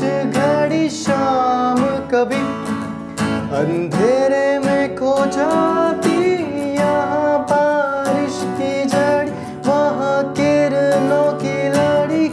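A man singing a Hindi song with long held notes, accompanying himself by strumming an acoustic guitar.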